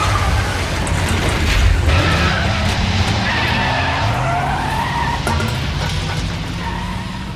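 A car engine revving hard with tyres squealing as the car speeds away. The sound fades toward the end as the car drives off.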